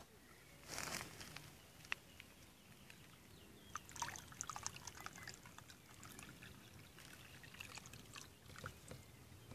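Water pouring and trickling out of a tipped plastic tub onto the ground, faint, with scattered small splashes that come thickest about four seconds in and again near the end.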